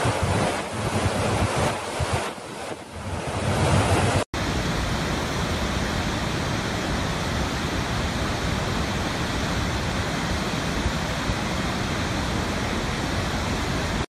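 Roar of a large waterfall, with wind buffeting the microphone unevenly for the first few seconds. About four seconds in the sound cuts abruptly to a second waterfall's steady, even roar.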